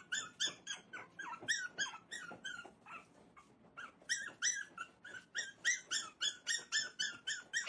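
A dog giving a rapid run of short, high-pitched yips, about four to five a second, that thin out briefly around the middle before picking up again.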